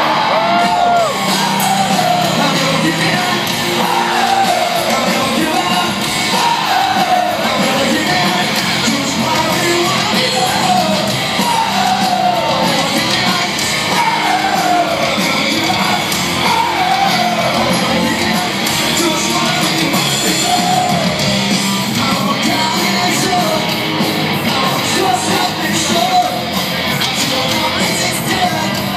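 Live rock band playing loud, heard from the audience: a vocalist sings repeated falling phrases over guitars and drums, with yells from the crowd.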